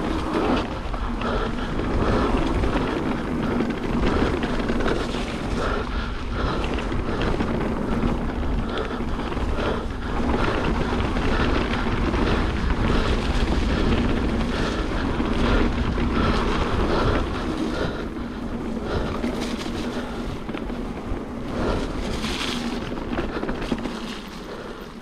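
Wind buffeting a mountain biker's camera microphone, with the rumble of tyres and the rattle of the bike on a rough trail descent; the noise eases off over the last few seconds.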